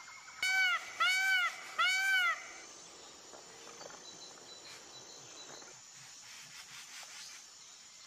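Peacock (Indian peafowl) calling three times in quick succession, each call loud and short with a pitch that rises and falls; after about two and a half seconds only faint outdoor background remains.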